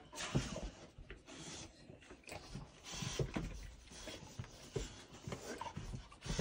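Cane Corso dogs being petted at close range, shuffling about and breathing with irregular snuffles and rustling.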